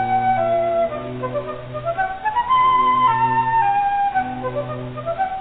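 Background instrumental music: a flute-like melody rising and falling over a steady lower accompaniment.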